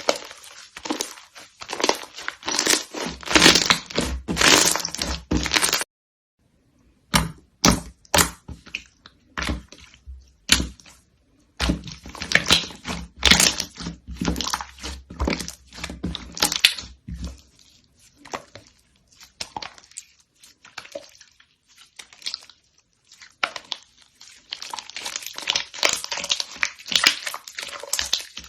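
Slime being squeezed, pressed and stretched by hands, giving off dense crackling and popping in uneven bursts. There is a short silent break about six seconds in.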